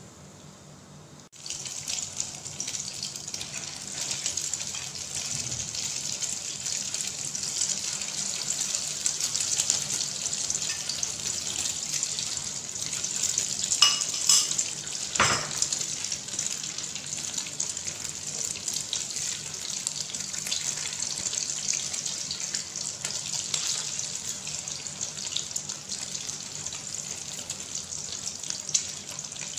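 Coated slices of luncheon meat frying in hot oil in a pan: a steady, loud sizzle with scattered crackles, which starts abruptly about a second in.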